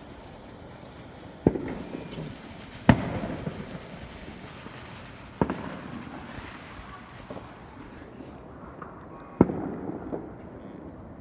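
Fireworks going off: four sharp bangs spread over several seconds, each followed by a short tail of crackling and echo, with a few smaller pops between them.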